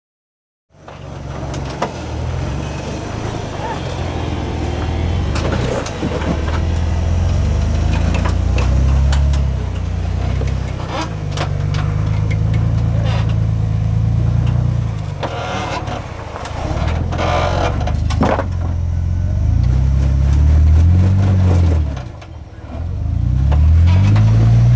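Engine of a modified Jeep JK Wrangler rock crawler revving up and down in repeated bursts as it climbs a steep boulder ledge, with occasional sharp knocks. The sound starts about a second in and drops off briefly near the end.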